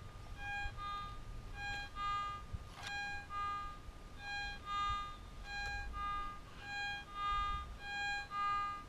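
Garrett ATX metal detector giving a smooth target signal as the coil is swept back and forth: on each pass, about once a second, a short lower tone and then a higher one, with no iron grunt or wavering. It is the kind of signal the detectorist reads as lead or gold, though this target turns out to be fully decomposed iron.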